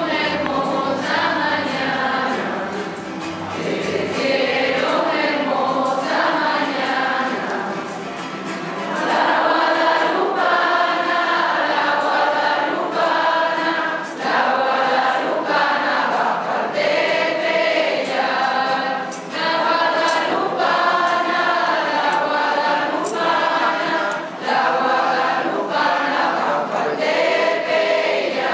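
Many voices singing a hymn together as a choir, getting a little louder about nine seconds in.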